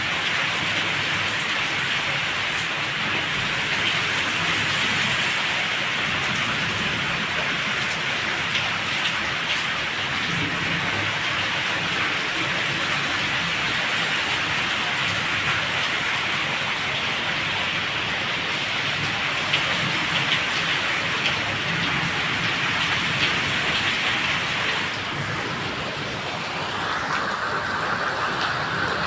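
Heavy rain pouring steadily, a dense even hiss of rain on surfaces, easing slightly for a moment a few seconds before the end.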